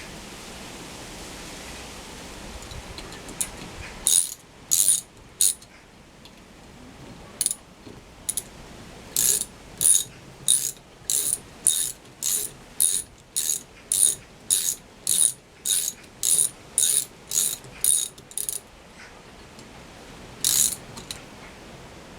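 Ratchet wrench clicking in a run of short, evenly spaced bursts, a little under two a second, starting about four seconds in and ending with one last burst near the end.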